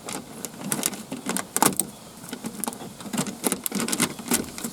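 Irregular clicking and clattering of metal and plastic parts being handled inside a car's rear door panel while the window motor assembly is worked loose.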